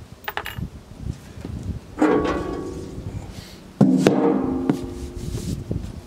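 Two metallic clangs about two seconds apart, each ringing on briefly: the sheet-metal blade-wheel cover of a Hud-Son Sawyer band sawmill being knocked loose and lifted off. A few light clicks come before them.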